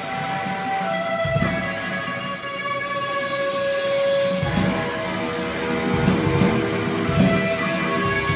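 A live rock band playing an instrumental passage led by guitar, with long held notes; the low end fills in about a second in.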